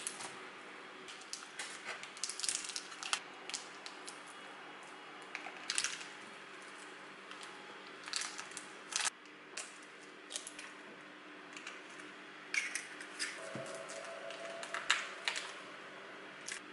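Plastic film crinkling and peeling off a sticky cake, with irregular clicks and taps of a knife cutting through it on a plastic cutting board, over a faint steady hum.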